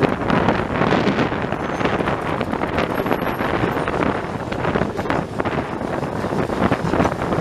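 Wind buffeting a microphone held out of a moving passenger train's window, over the running noise of the train on the track, with irregular brief knocks.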